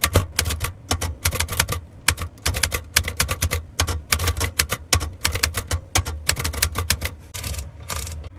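A 1961 Brother Charger 11 manual portable typewriter being typed on: quick, irregular keystrokes of the type bars striking paper, several a second, with a couple of brief pauses. This is a test typing of the freshly reconditioned machine.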